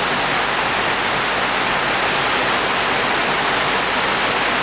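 Heavy tropical downpour: a steady, even hiss of rain.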